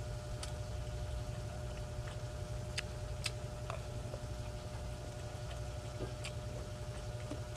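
Eating sounds: a handful of sharp clicks and smacks spread over several seconds as rice and canned sardines are chewed and scooped with a wooden spoon, over a steady low hum.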